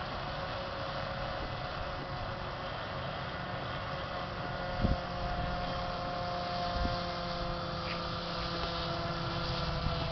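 Radio-controlled air boat's propeller and motor running with a steady whine, a second, higher tone joining about halfway; a single thump about five seconds in.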